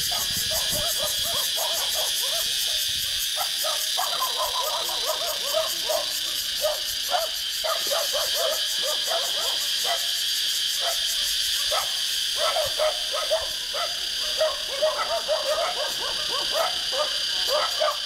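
Many cicadas buzzing together in a dense, steady, high-pitched chorus. Short, irregular calls break in over the buzz from about three seconds in.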